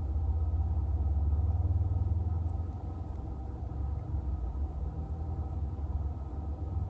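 A steady low rumble that eases slightly about two and a half seconds in.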